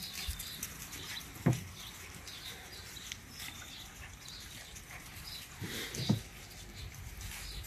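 Pit bull puppies scampering and playing through dry leaves and grass, their paws pattering and rustling. A short low thump comes about a second and a half in, and a louder one near six seconds.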